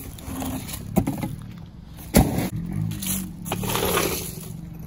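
Two sharp knocks, the louder one about two seconds in, then scraping and rattling as a floor jack is rolled across the pavement.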